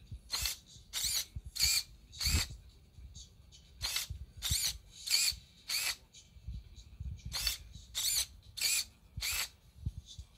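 Hobby servo motors whirring in short bursts as they swing the robot's side doors open and shut. The bursts come in three runs of four, about two-thirds of a second apart.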